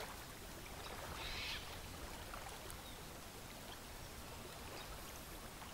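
Faint shoreline ambience: gentle water lapping, with a short bird call about a second in.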